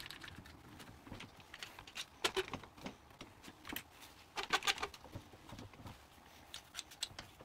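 Irwin Quick-Grip one-handed bar clamps being put on a glue-up and tightened: scattered plastic-and-metal clicks and clacks, with two short runs of quick clicks as the trigger handles are pumped.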